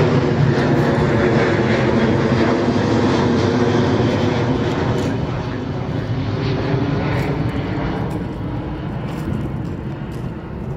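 Boeing 737-800's CFM56-7B jet engines running at takeoff-climb thrust as the airliner passes overhead just after lift-off. The sound is loud and steady, sinks slightly in pitch, and fades from about halfway through as the plane climbs away.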